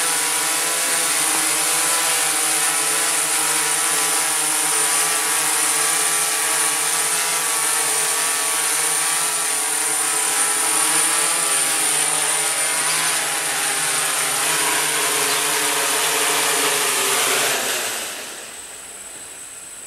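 Electric motors and propellers of a small multirotor toy copter buzzing steadily in flight, the pitch wavering slightly. The buzz drops away sharply about eighteen seconds in.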